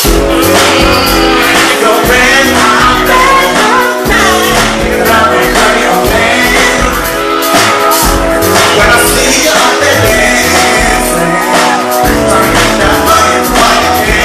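Live band playing an upbeat pop song: a male voice singing over synthesizer keyboards, drums and bass.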